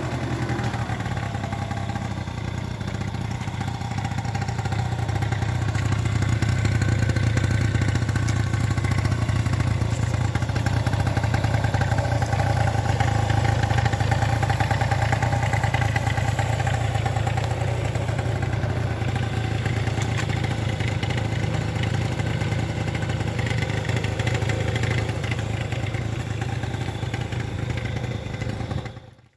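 1986 Honda Spree's 49cc two-stroke single-cylinder engine idling steadily, still warming up after a cold start.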